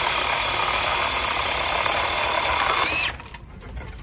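Seesii 8-inch cordless mini chainsaw with a brushless electric motor, running at full speed with a steady high whine, cutting a branch. About three seconds in the trigger is released and the whine drops away as the chain stops.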